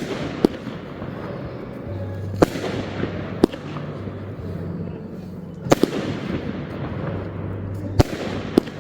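Fireworks display: sharp bangs of shells bursting every second or two, one pair close together, over continuous crackling and fizzing from the effects.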